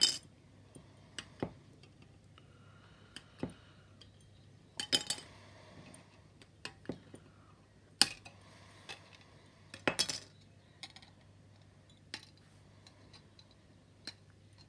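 Plastic model-kit sprue frames being handled, giving a dozen or so separate light clicks and clacks as the plastic knocks together and against the cutting mat, over a faint steady hum.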